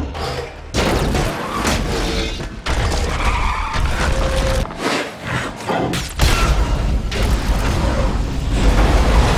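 Action-film sound mix edited in quick cuts: crashing metal, smashing impacts and vehicle noise over music, ending in a big low explosion near the end.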